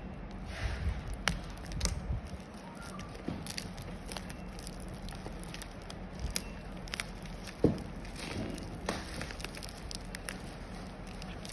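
Plastic courier mailer bag crinkling and crackling as hands handle it and pick at its sealed end, with scattered clicks and one louder crack about two-thirds of the way through.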